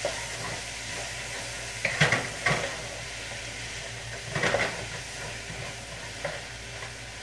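Shrimp and broccoli stir-frying in a wok with oil: a steady sizzle, with a spatula stirring and scraping the pan about two seconds in and again around four and a half seconds.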